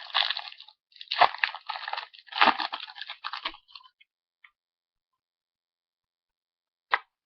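Foil booster-pack wrapper crinkling and crackling as it is torn open and the cards are pulled out, in several bursts over about three and a half seconds, then a single short click near the end.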